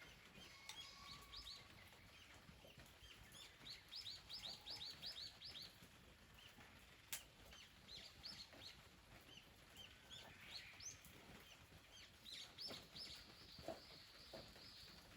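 Faint wild birdsong: small birds chirping in short high notes, with a quick run of about eight chirps about four seconds in, and one sharp click about seven seconds in.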